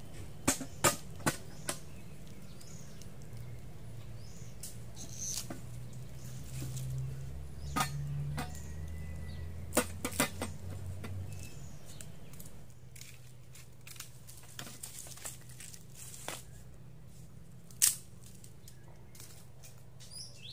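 Wood fire in a metal bucket stove crackling, with scattered sharp pops, the loudest near the end, over a low rumble that drops away about two-thirds of the way through.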